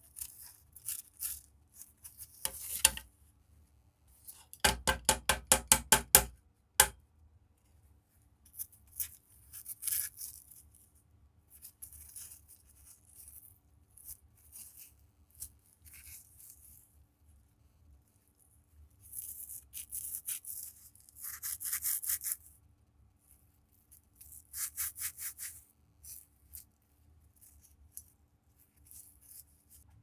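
A rusty antique pocket knife being handled and worked by hand: intermittent scraping and rubbing of the corroded blade and handle. About five seconds in comes a quick run of sharp taps, then a single click.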